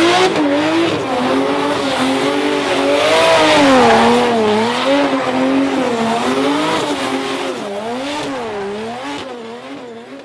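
Sound effect of a car drifting: engine and squealing tyres, its pitch wavering up and down over a noisy hiss, fading out near the end.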